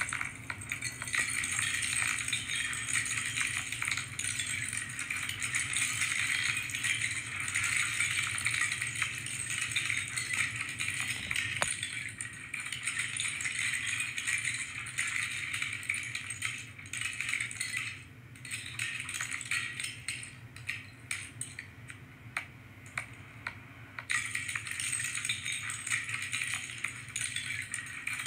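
Plastic LEGO bricks rattling and clicking in a dense, fast clatter as pieces are handled and snapped together, with a few quieter gaps in the second half.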